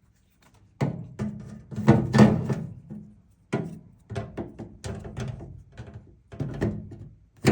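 Irregular knocks and clunks of the washing machine's drain pump and filter housing being handled and refitted, about nine in all, the loudest around two seconds in, some with a short hollow ring.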